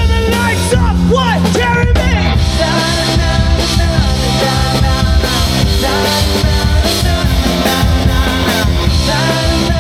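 Rock music with singing, electric guitar and drums, playing steadily.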